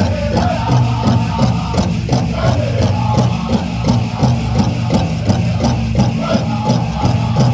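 Powwow drum and singers: a steady, evenly spaced drumbeat under high group singing, with the metal cones of jingle dresses rattling as the dancers step.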